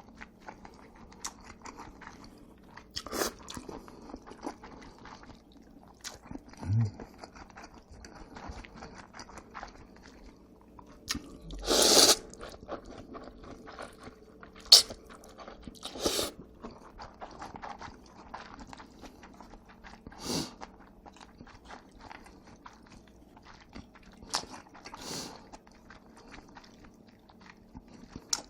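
Close-miked chewing of jajangmyeon and jjamppong noodles, with wet mouth clicks throughout and a handful of louder, sudden eating sounds, the loudest near the middle.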